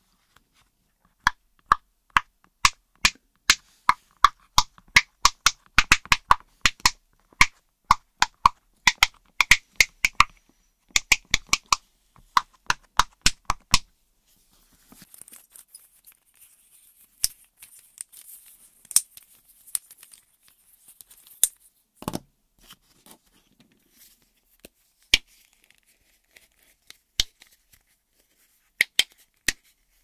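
Silicone push-pop fidget toy bubbles being pressed one after another, a quick run of sharp pops for about the first fourteen seconds. Then quieter scratchy handling of plastic toys with scattered clicks and one heavier knock.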